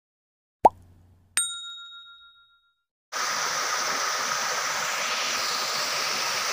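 A short click, then a bright bell ding that rings out and fades over about a second: the click-and-bell sound effect of a subscribe-button animation. About three seconds in, a steady hiss starts and cuts off suddenly near the end.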